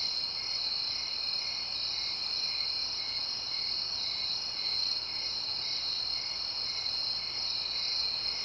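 Night chorus of crickets and other insects: a steady high-pitched trill, with a fainter chirp pulsing about twice a second beneath it.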